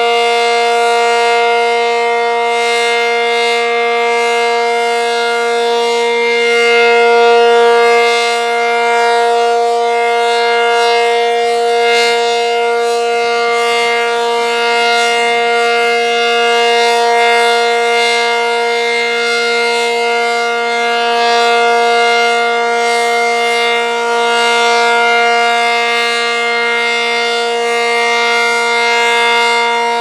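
ACA Cyclone 125 electromechanical tornado siren sounding a steady alert tone at full pitch, held level with slight slow swells in loudness, during its monthly test.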